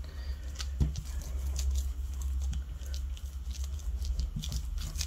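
Hands rolling a log of silicone mold putty back and forth on a plastic sheet: scattered rustling and light ticks, with a soft thump about a second in.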